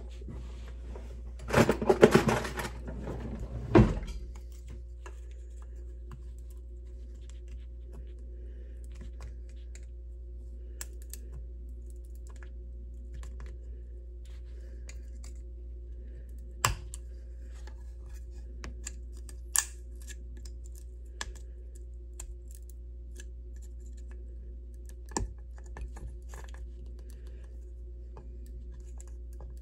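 Clicks, taps and scrapes of hands and a screwdriver working a circuit board, prying at glued-on parts, with a burst of rattling clatter about two seconds in and a few single sharp clicks later. A low steady hum runs underneath.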